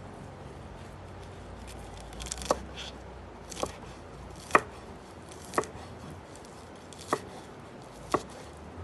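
Knife chopping food, six separate sharp strokes about a second apart, starting a couple of seconds in.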